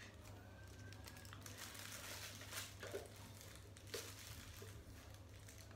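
Plastic packaging crinkling and rustling as an appliance is unwrapped, with a few light knocks from parts being handled, over a low steady hum.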